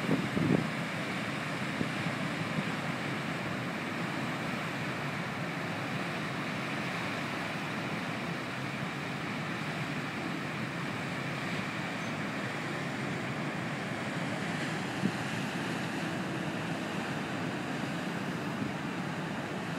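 Steady rushing wash of water churned up along the hull of the cruise ship Celebrity Constellation as it moves past, over a low rumble from the ship. Wind buffets the microphone a few times in the first second.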